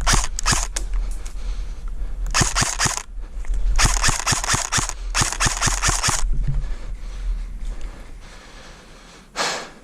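Airsoft electric gun (AEG) firing in several quick bursts of rapid plastic-BB shots, four strings of snapping clicks over the first six seconds.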